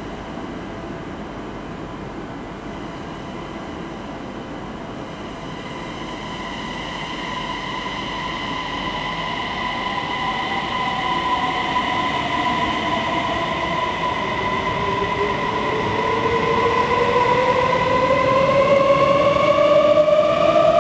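CRH1 electric multiple unit pulling away and accelerating: the whine of its traction motors comes in several tones that slowly climb in pitch. The sound grows steadily louder from about a quarter of the way in, with the rumble of the passing carriages rising beneath it.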